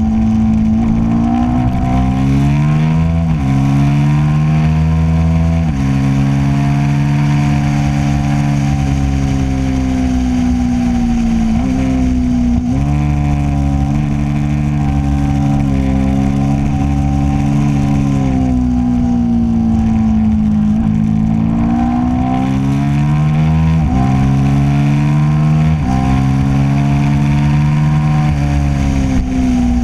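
Motorcycle engine heard from a camera mounted on the bike, its revs rising and falling continuously through the corners with several abrupt pitch jumps at the gear changes.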